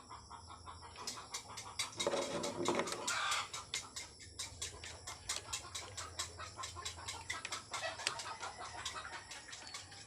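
Chickens clucking in the background, with many light clicks and taps of handling over a steady low hum.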